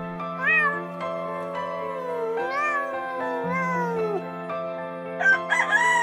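Goat bleating a few times, short wavering calls that slide up and down in pitch, over background music; about five seconds in a rooster starts crowing loudly.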